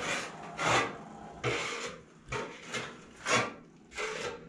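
A series of about seven short scraping strokes, unevenly spaced about half a second to under a second apart.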